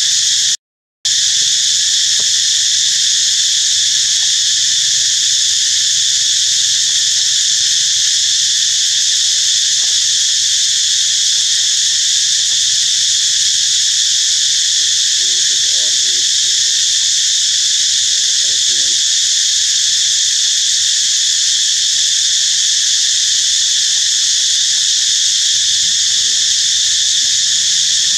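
Loud, steady high-pitched drone of a forest insect chorus, cutting out completely for about half a second near the start.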